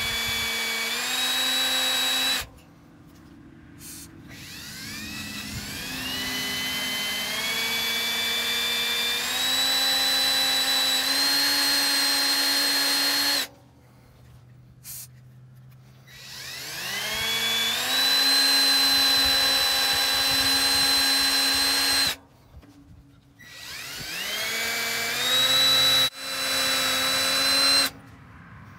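Ridgid 18-volt cordless drill boring a 3/16-inch bit into the rusty steel collar of a gate hinge. The motor whines in long runs that stop and restart several times, rising in pitch each time it spins back up.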